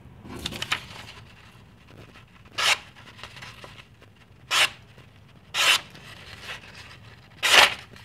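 A vintage slip-joint pocket knife blade slicing through a sheet of paper in four short strokes about a second or two apart, after a rustle of paper being handled. It is a sharpness test on the freshly de-rusted and sharpened blade.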